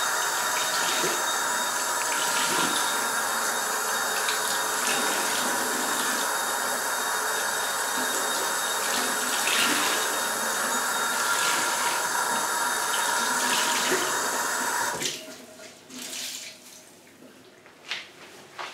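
Bathroom sink tap running in a steady stream while a cellulose sponge is rinsed under it. The water shuts off about 15 seconds in, leaving a few soft rustles and taps.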